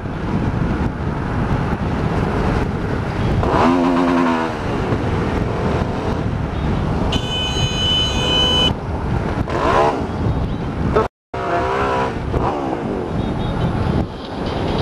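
Wind rush and the Hyosung GT650R's V-twin engine at freeway speed, heard from a helmet-mounted camera, with the engine revving up and down a few times. A horn sounds for about a second and a half just past the middle.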